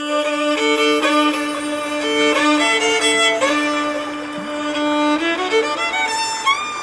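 Background music led by violin: slow sustained melody over a held low note, with vibrato on the long notes near the end.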